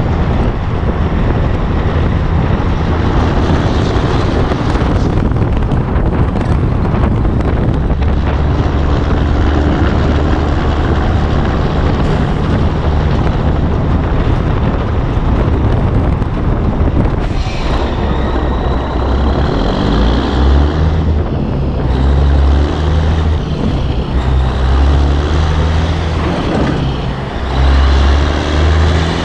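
Diesel engine of a 1984 Peterbilt 362 cabover semi pulling a loaded trailer, heard from the trailer with tyre and wind noise. In the second half the engine's low note changes in uneven steps as the rig slows.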